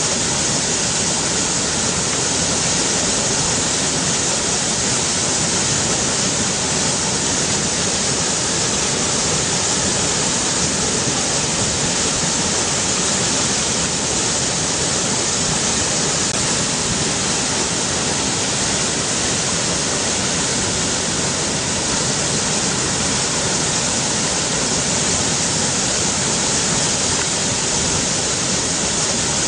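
River water rushing in a steady, unbroken flow, a continuous hiss that is strongest in the high end.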